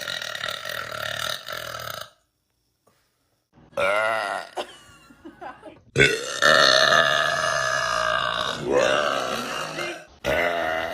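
A person belching repeatedly: a burp in the first two seconds, then after a short pause a wobbling burp and one long, drawn-out belch of about four seconds, with another burp starting near the end.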